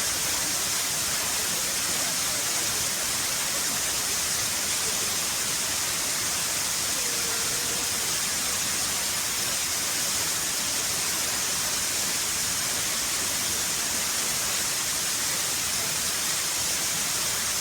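Loud, steady rush of water from the Olumirin waterfall, an unbroken hiss with no pauses.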